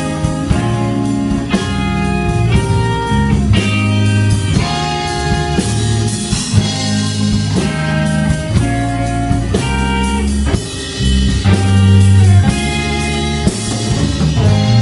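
Live rock band playing an instrumental passage: electric guitars and drum kit, with no vocals.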